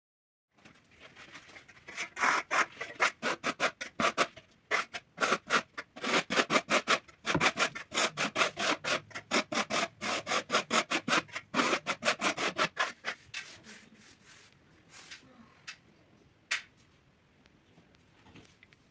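A hand tool rubbing over decorative plaster on a wall in quick back-and-forth strokes, about four a second, thinning out to a few scattered strokes after about thirteen seconds.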